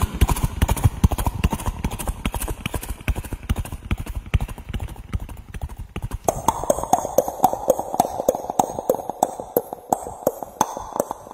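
A man imitating a horse's galloping hoofbeats with his mouth: a fast run of clip-clop clicks that gets louder and brighter about six seconds in.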